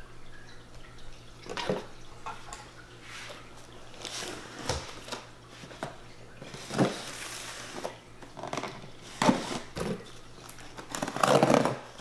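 Cardboard shipping boxes being handled and the packing tape on one slit open with a knife: irregular knocks, scrapes and rustles of cardboard, busiest with crinkling and tearing near the end.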